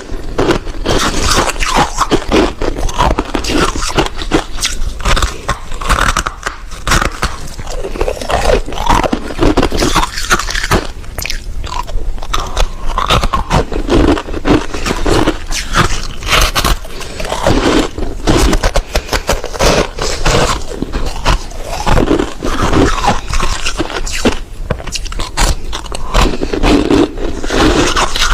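Close-miked biting and chewing of crunchy ice, a dense run of cracks and crunches that goes on without a pause.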